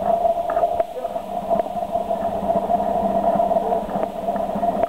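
Forklift running steadily with a constant hum, with scattered light clicks and knocks.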